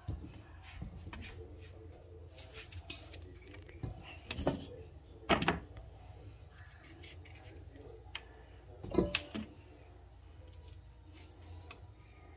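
A paring knife cutting through pieces of hard pumpkin, with scattered small clicks and three sharp knocks of the blade against a white cutting board, spread over the middle of the clip.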